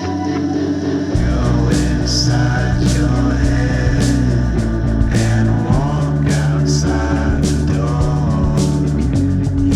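Psychedelic rock band music with drums on a steady beat; the bass and full band come in about a second in.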